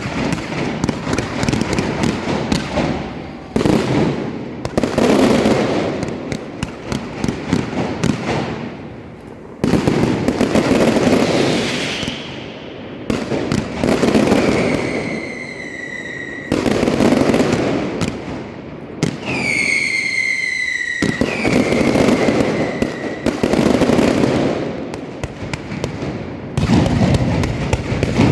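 Large aerial fireworks display: rapid crackling and repeated booming shell bursts. Twice about halfway through, a whistling firework glides down in pitch over the bursts.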